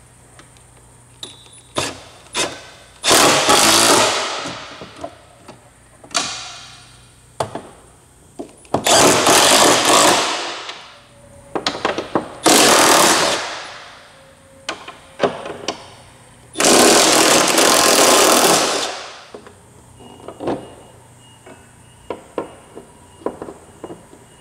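A 3/8-inch impact wrench with a 13 mm socket running down the hood-to-hinge nuts in four bursts of about one to two seconds each, each tailing off as the trigger is released. Light clicks and knocks of the tool and fittings come between the bursts.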